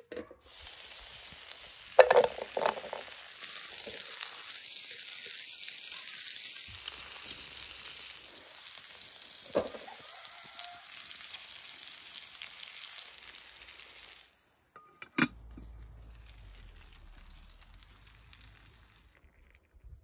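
Food sizzling in a frying pan over a campfire: a steady hiss, with a few knocks as pieces are set into the pan about 2 s and 10 s in. It stops after about 14 s; a sharp click follows, then a quieter low rumble with faint hiss.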